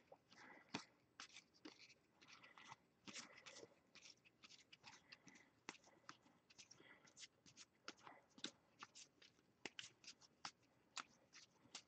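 Faint, scattered clicks and soft rustles of baseball trading cards being handled and sorted.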